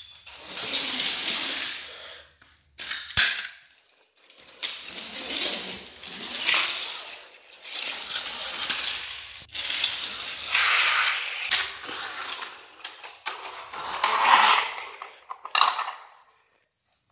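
Rustling and clattering of toy trains and plastic and wooden track being handled and moved, in swells of noise, with a single sharp click about three seconds in.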